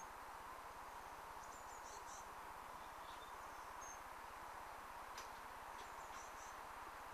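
Faint steady hiss with a few soft, short, high chirps and a single light tick.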